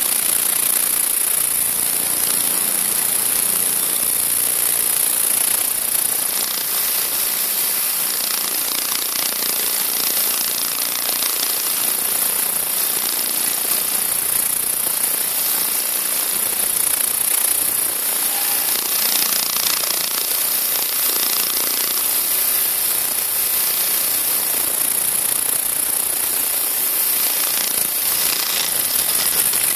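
Ultrasonic vibrating sieve machine running: a steady mechanical buzz with a constant high hiss over it.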